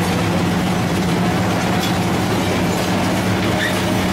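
Lindner Urraco 95 DK mobile shredder running and shredding scrap metal: a steady engine hum under a continuous dense clatter and grinding of metal, with a few faint metallic squeals.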